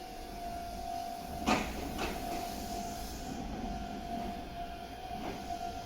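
Meitetsu Seto Line electric train running by, with a steady high tone held throughout and a few sharp clicks, the loudest about one and a half seconds in.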